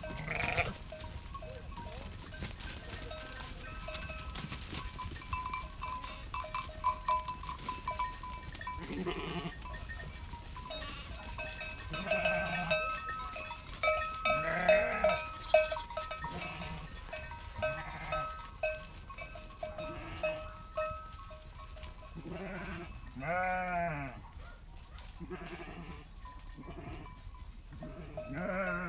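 A flock of sheep walking past, bleating again and again, with one long quavering bleat late on, while the bells worn by some of the sheep clink and clank throughout.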